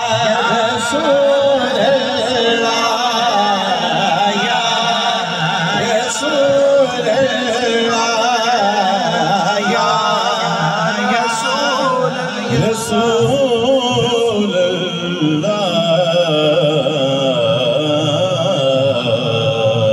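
A man's voice singing a naat (Urdu devotional recitation) into a handheld microphone, in a drawn-out, wavering chant-like melody that carries on without a break.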